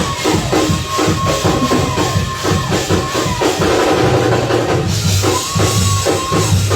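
Live church band playing a fast praise-break groove: drum kit and tambourine hits in a quick, even beat, with held high notes that fall off at their ends over a bass line.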